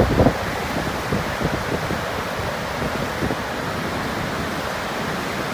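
Steady rush of water pouring through a dam. Wind buffets the microphone in the first moment.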